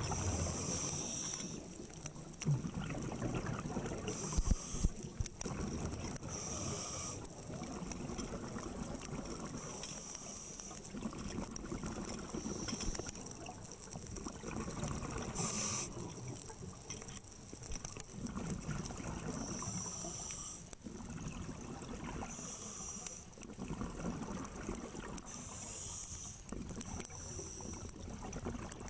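Scuba regulator breathing heard underwater: a hiss and bubble burst every few seconds over a steady low rumble, with a few thumps in the first five seconds.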